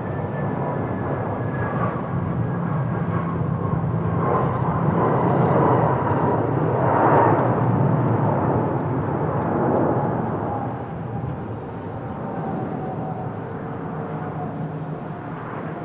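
Airbus A321-213 jet airliner with CFM56 engines passing on landing approach. The engine whine and jet noise grow to their loudest about seven seconds in, then fade, while the engine tones slowly fall in pitch as it goes by.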